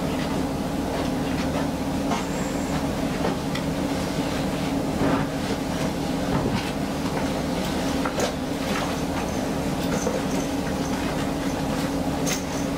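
A steady mechanical hum, like a fan or air conditioner, with rustling fabric and light knocks as clothes and jackets are pulled out and tossed onto a bed.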